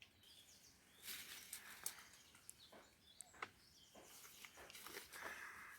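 Faint rustling of coffee-bush leaves with a few small sharp snaps as berries are picked by hand, and faint bird chirps.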